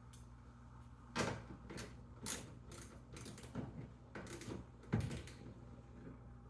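A mudflap being fitted to a wheel well with hand tools: a run of irregular knocks, clicks and scrapes, the loudest about one second and five seconds in.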